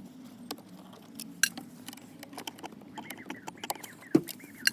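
Screwdriver taking small screws out of a car's dashboard trim: scattered light clicks and clinks of metal on screw and plastic, over a low steady hum. A faint wavering squeak comes in during the second half.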